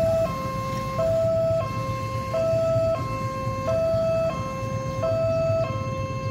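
Railway level-crossing warning alarm from a pole-mounted loudspeaker, sounding an electronic two-tone signal that alternates a lower and a higher tone about every two-thirds of a second. It means the barriers are down and a train is approaching. A low rumble of waiting engines runs underneath.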